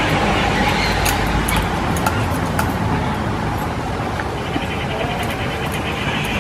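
Wooden rolling pin rolling back and forth over a round of dough on a flour-dusted board: a steady rolling noise with a few light clicks in the first half, stopping briefly while the dough is lifted and dusted with flour.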